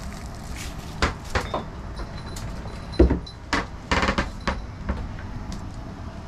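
A series of knocks and thumps on wooden cabin fittings and floor, the loudest a heavy thud about three seconds in, with a quick cluster of knocks around four seconds.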